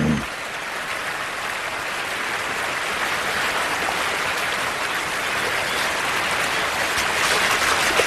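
Steady rush and splash of a fast-flowing salmon creek, growing slightly louder and busier near the end.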